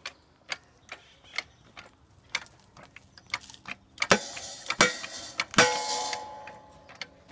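Manual hydraulic log splitter being pumped by hand, its pump mechanism clicking about twice a second. About four seconds in, the log starts cracking under the ram against the wedge: several loud crackling bursts and a brief creak as the wood gives way and splits.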